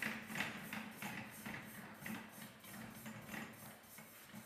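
Gloved hands rubbing and turning the metal barrel of a diamond core drill bit as it is screwed onto the drill motor's spindle: a rhythmic series of soft brushing strokes, about two to three a second, weakening toward the end.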